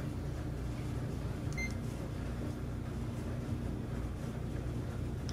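A steady low hum with no clear clicks or knocks, and a short faint high tone about a second and a half in.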